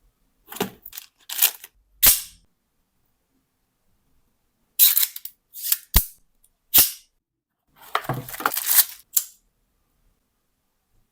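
A series of sharp clicks and snaps with short scraping rustles, in three bursts with silent gaps between. The sharpest snap comes about six seconds in. These are sounds of an object being handled and unpacked.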